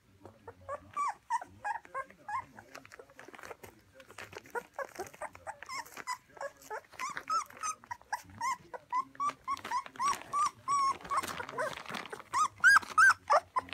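A young puppy whimpering and squealing in a long run of short, high squeaks, several a second, louder near the end. A brief rustle about eleven seconds in.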